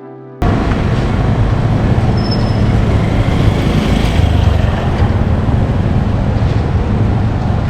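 Steady city street traffic noise, a dense rumble of passing vehicles that cuts in suddenly about half a second in.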